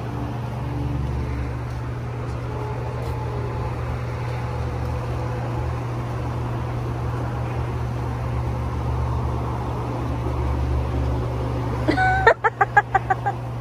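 Steady low hum and rumble of background machinery or traffic. About 12 seconds in, a brief run of short voice sounds breaks in.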